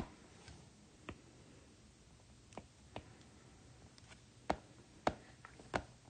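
Light, irregular taps of a stylus tip on a tablet's glass screen while painting, about nine sharp clicks at uneven spacing, the loudest ones in the second half.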